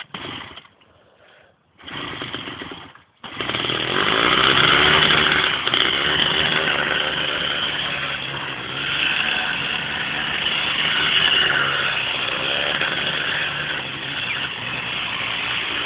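Small D6 two-stroke bicycle engine on a motorized bicycle, cutting in and out briefly during the first three seconds, then running steadily with slight rises and falls in level.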